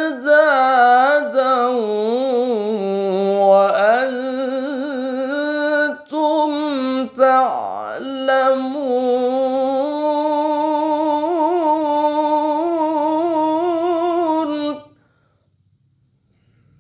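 A man's solo Quran recitation (tilawah) in maqam Hijaz: long held, richly ornamented melodic lines with wavering pitch, broken by short breaths about six and seven seconds in. It stops about fifteen seconds in.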